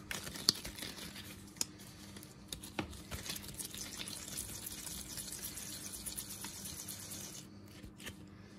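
Hands kneading and pressing a dense wet chalk-and-clay paste into cookie shapes: a steady soft squishing and rubbing noise with a few light clicks in the first three seconds, stopping shortly before the end.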